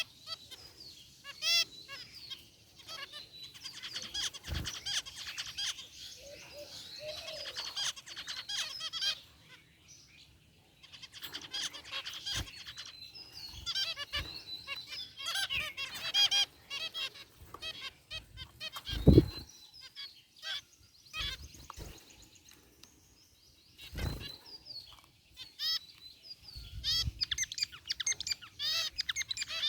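A group of zebra finches calling in an aviary: many short, rapid chirps and beeping calls overlapping. A few loud knocks come through.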